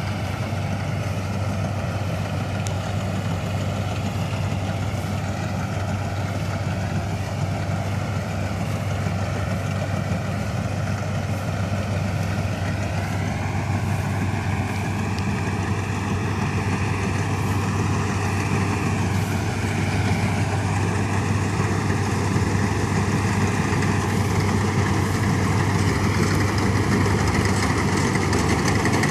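Ködel & Böhm Köla Combi Special combine harvester from 1965 running steadily, a low mechanical drone with a higher whine over it that shifts in pitch about halfway through, growing slightly louder near the end.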